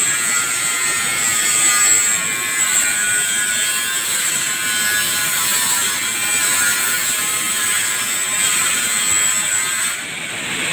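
TIG welding arc buzzing steadily with a high whine. Near the end the whine stops and the level briefly drops.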